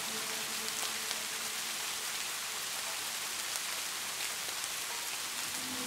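Steady rain, an even hiss with scattered single drops ticking through it.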